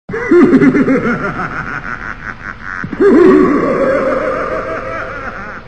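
Laughter starts suddenly out of silence, with a second, louder burst about three seconds in.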